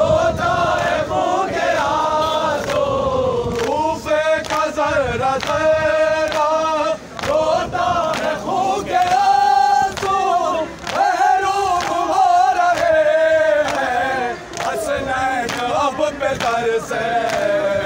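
Men's voices chanting an Urdu noha lament in chorus, in long notes that rise and fall, over a steady beat of strikes. The strikes are typical of matam, mourners beating their chests in time with the lament.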